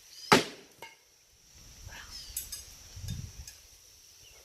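A single sharp knock of a thrown object striking its target about a third of a second in, followed by a lighter knock, then a soft low rumble around three seconds in.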